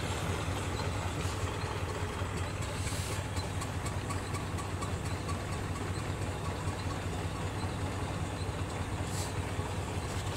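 Arrow C-66 single-cylinder gas engine running steadily, driving an American oil-well pumping unit at about six strokes a minute with a 44-inch stroke.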